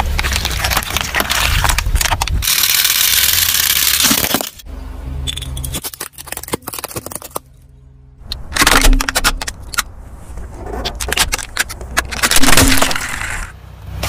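Car tyres rolling over and crushing objects on asphalt: plastic bottles of water beads cracking and crunching, then water balloons bursting, in several separate takes. Many sharp cracks and snaps, with a stretch of steady hissing noise in the first few seconds and a short quiet gap about halfway through.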